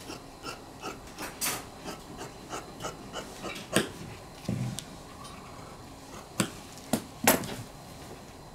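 Large steel tailor's shears snipping through soft domette interlining on a cutting table, a run of crisp snips about two a second. Near the end come a few louder metallic clacks as the shears are laid down on the table.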